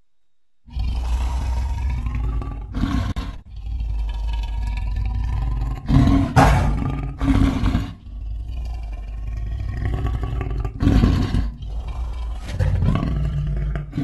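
Lion sound effect: a long run of deep roars and growls that starts about a second in, with a few short breaks, loudest about halfway through.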